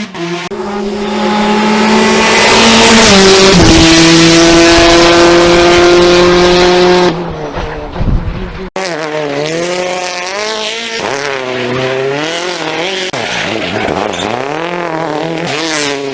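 Rally cars at full speed on a stage. The first car passes close and loud, holding a steady high engine note. After a sudden cut, a second car's engine rises and falls over and over as it shifts gears and lifts off.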